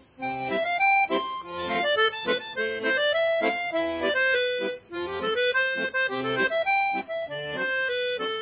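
Accordion playing a tune: a melody over a steady, rhythmic bass-and-chord accompaniment.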